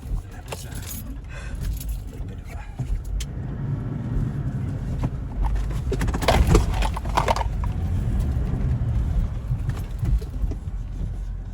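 Toyota LandCruiser Troopcarrier crawling over a rough, muddy 4WD track, heard from inside the cabin: a steady low engine and drivetrain rumble with knocks, jolts and rattling of loose gear. The heaviest jolts come about six to seven and a half seconds in.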